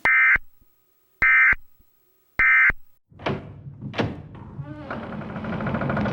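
Three short, identical data-tone bursts about a second apart: the EAS end-of-message (SAME 'NNNN') signal that closes an emergency alert. About three seconds in, two sharp sweeping noises are followed by a low droning noise that grows steadily louder.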